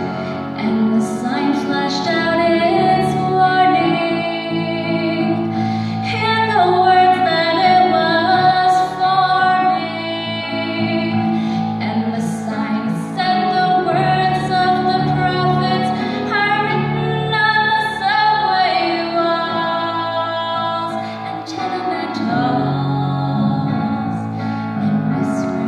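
A woman singing a slow, gentle melody with sustained notes, over a soft instrumental accompaniment.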